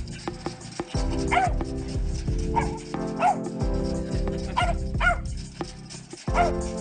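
A dog giving short, high yips, about six of them a second or so apart, over background music.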